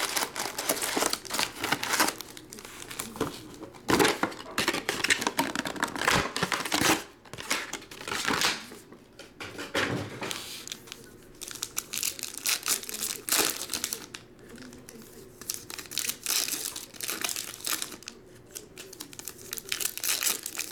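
Foil trading-card packs crinkling as they are handled, pulled from a box and stacked, with packs being torn open. The crackling comes in irregular clusters.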